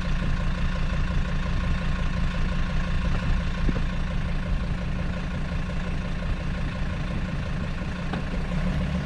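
The old ambulance's engine running, heard from inside the cab: a steady low rumble with a hiss above it.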